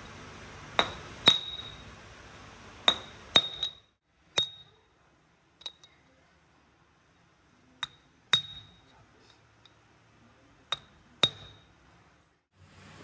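Hammer striking a steel marking punch held on machined steel truck kingpins: about ten sharp metallic taps at uneven intervals, each with a brief high ring, stamping marks into the pins.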